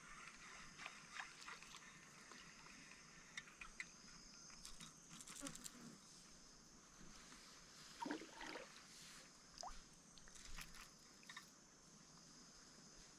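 Faint forest ambience: a steady high insect drone, with scattered light clicks and soft knocks, a few slightly louder ones about eight seconds in.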